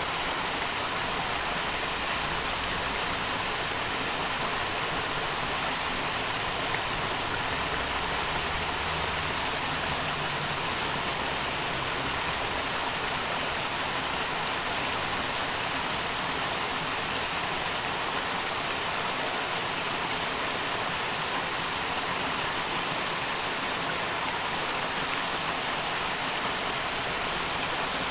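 Small mountain stream rushing over stones, a steady, even rush of water.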